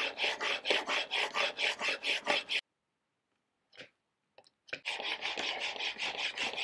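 Chisel clamped in a roller honing guide, rubbed rapidly back and forth on a diamond sharpening plate, about five scraping strokes a second, honing the secondary bevel to raise a burr. The strokes stop for about two seconds in the middle, then start again.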